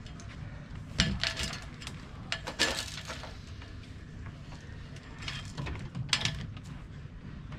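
Scattered metallic clinks and knocks from a Hobie 16 catamaran mast and its rigging being handled, with sharper knocks about a second in, midway, and near 6 s.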